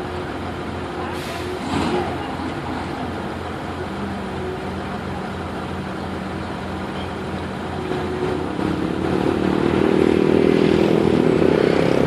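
A machine's engine running steadily with a low pulsing drone, then working harder and louder from about eight seconds in. There is a brief noisy burst near the start.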